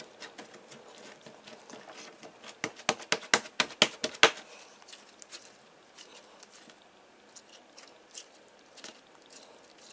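Crunchy Planet Putty crackling and snapping under the fingers as its crumbled pieces are pressed and squeezed back together. A dense run of sharp crackles comes about two and a half to four seconds in, then sparser, fainter ones.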